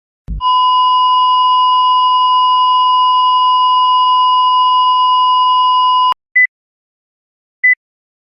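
Heart-monitor sound effect: a brief low thump, then a continuous flatline tone for about six seconds, the alarm of asystole. It cuts off sharply and single pulse beeps return, about 1.3 seconds apart.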